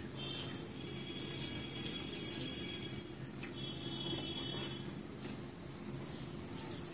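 Wet eating sounds: rice and sambar squished and mixed by hand on a steel plate and chewed, with soft clicks, over a steady low hum.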